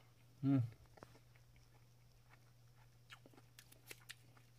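A short hummed 'mm' from a man's voice about half a second in, then scattered faint small clicks and taps.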